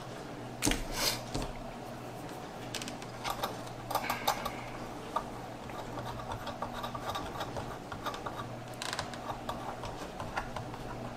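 Small clicks, taps and scrapes of fingers handling a motherboard and hand-threading the CPU cooler's mounting screws, the loudest cluster of clicks about a second in, over a steady low hum.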